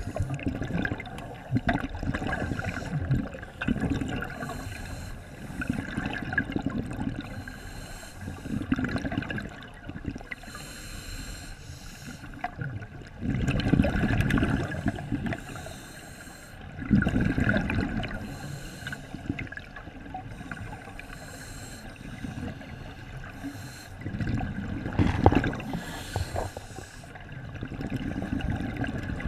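Scuba diver breathing through a regulator underwater: a hiss on each inhale and a burst of bubbling exhaust on each exhale, repeating every few seconds.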